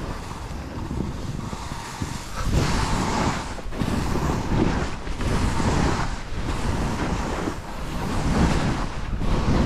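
Wind rushing over a helmet camera's microphone while skiing fast downhill, with the hiss of skis scraping through snow swelling and fading with each turn.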